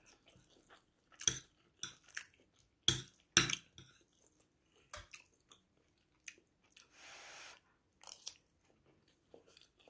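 Mouth sounds of someone chewing a mouthful of coconut rice with vegetables, broken by scattered sharp clicks. A short breathy hiss comes about seven seconds in.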